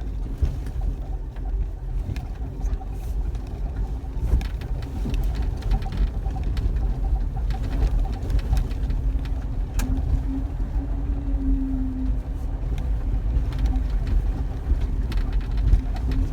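Jeep Wrangler driving slowly over a rough dirt trail, heard from inside the cab: a low engine and cabin rumble with scattered knocks and rattles as the wheels go over rocks and ruts.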